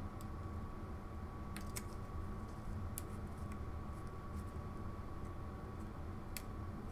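A handful of faint, sharp ticks and clicks from gloved hands handling a plastic LED eye piece as it is pressed into place in a 3D-printed helmet faceplate. Under them runs a steady low hum.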